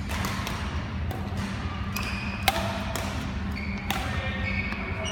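Badminton rackets striking a shuttlecock in a rally: a string of sharp hits, the loudest about halfway through, echoing in a large sports hall.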